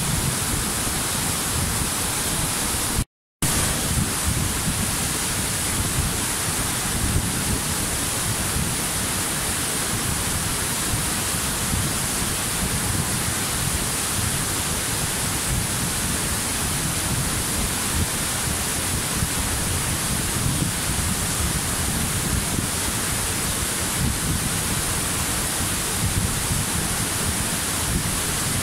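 Waterfall: a steady, even rushing of falling water. It drops out to total silence for a fraction of a second about three seconds in, then resumes unchanged.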